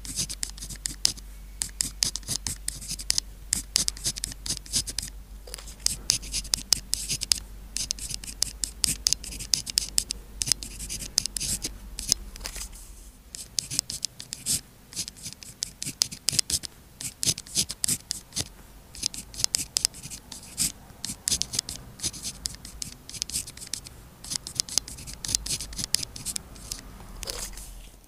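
A pen writing on paper, close up: a quick, uneven run of short scratchy strokes, with a brief lull about halfway through.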